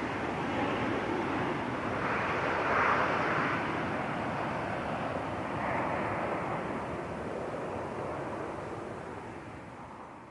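Boeing 737-800's CFM56 jet engines climbing away after takeoff, a steady rushing roar that fades out near the end.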